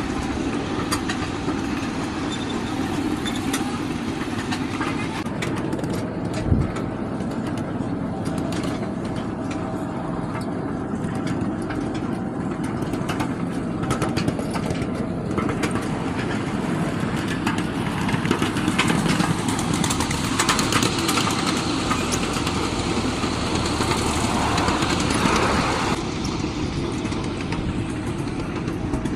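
Ride-on miniature train running along its track: a steady rumble with frequent short clicks and clacks, and one low thump about six and a half seconds in.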